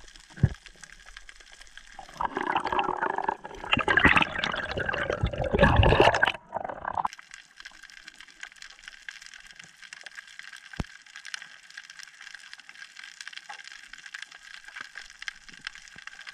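Underwater on a reef: a steady crackling hiss, with a sharp knock about half a second in. From about two seconds in, some five seconds of loud bubbling and gurgling water close to the microphone stop suddenly.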